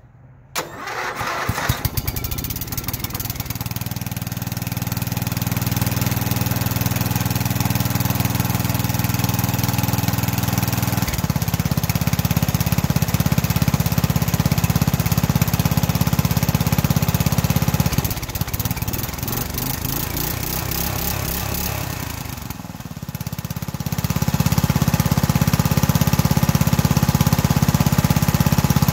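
Craftsman LT11 riding mower engine catching on a cold start about a second in and then running. Its engine note shifts step a few times and dips briefly a little before the end.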